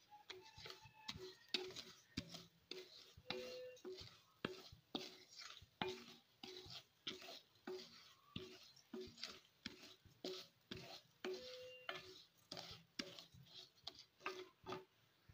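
Wooden spatula stirring and scraping raw rice grains around a metal kadai, a rhythmic run of soft scrapes at about two strokes a second as the rice dry-roasts in a little ghee.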